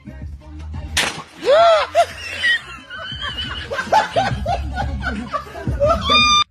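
People laughing hard, over background music with a steady bass line, with a sharp smack about a second in.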